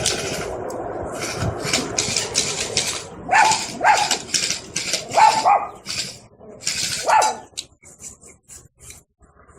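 A dog barking, about five short barks mostly in pairs between about three and seven seconds in, over short scuffing noises.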